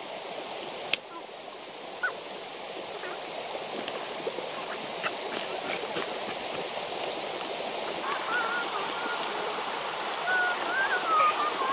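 Shallow river flowing over stones, a steady rushing hiss, with a few sharp clicks early on. From about eight seconds in, short high wavering calls sound over it.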